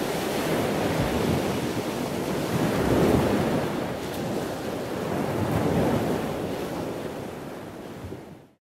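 Wind and sea noise from a sailboat under way, with wind buffeting the microphone. It swells twice and cuts off abruptly near the end.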